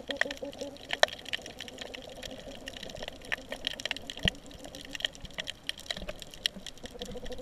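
Underwater reef sounds: a crackle of scattered sharp clicks over a steady hiss, with a rapid low pulsing tone in the first second and again near the end. The uploader takes these noises for fish.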